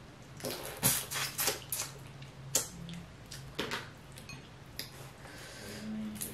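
Wet mouth sounds of eating sauced boiled shrimp: chewing, sucking and lip smacks, with a brief closed-mouth hum near the end.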